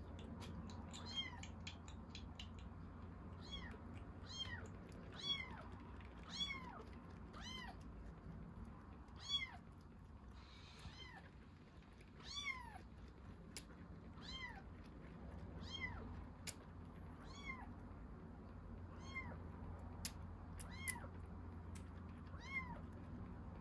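Baby kitten mewing over and over, about once a second: short high-pitched mews that each rise and then fall in pitch, with a few sharp little clicks between them.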